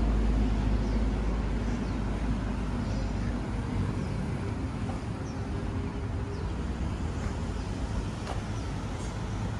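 Steady low rumble of road traffic, slowly getting quieter, with a few faint ticks.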